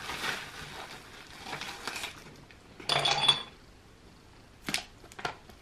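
Ice cubes clinking against glass tumblers as they are filled from a plastic bag of ice, with the bag rustling. The loudest clink, with a short ring, comes about three seconds in, and a few sharp small clicks follow near the end.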